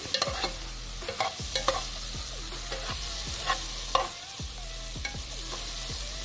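Metal spoon scraping and knocking against a metal pot, stirring sliced tomatoes, onions, garlic and ginger as they sauté in oil, with a light sizzle underneath. The knocks come irregularly, several loud ones in the first four seconds.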